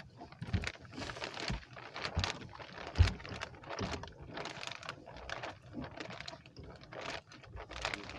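Fishing net and rope being hauled by hand over a wooden boat's gunwale: irregular scraping and rubbing with many small clicks and knocks, and one louder knock about three seconds in.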